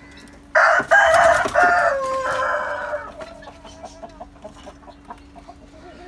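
A rooster crowing once, starting about half a second in and lasting about two and a half seconds, its last note drawn out and falling.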